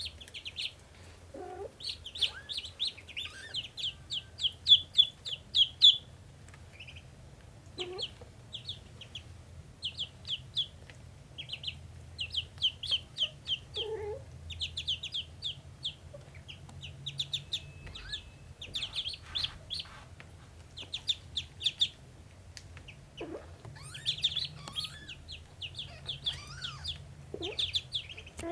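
Ducklings peeping in rapid, high runs of many peeps each, with pauses between, over a faint steady low hum. A few short, lower calls are mixed in now and then.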